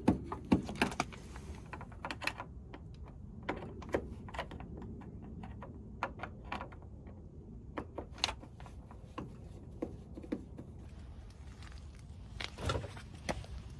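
Irregular clicks, taps and knocks of screwdrivers and hands working on a rear-projection TV's plastic cabinet, with a louder cluster of knocks near the end, over a steady low rumble.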